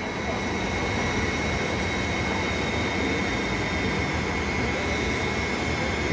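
Steady rushing of a large industrial floor fan, with a thin, high, steady tone running through it.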